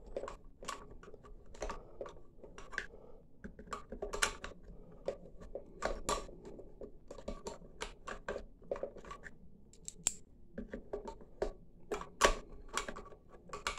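Irregular metallic clicks, taps and scrapes of an SKS rifle's parts being handled as the 10-round box magazine is pushed down and worked into place in the stock, with no steady rhythm.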